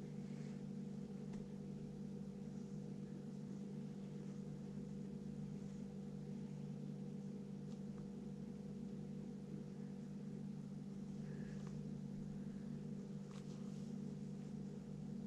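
Steady low hum of a machine or appliance, with a few faint soft scratches of a pencil drawing on paper.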